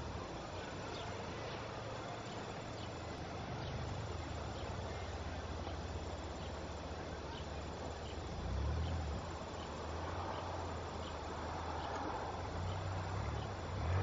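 Outdoor summer ambience of insects chirping, faint short chirps repeating steadily over a background hiss. A low hum swells briefly about eight and a half seconds in and again near the end.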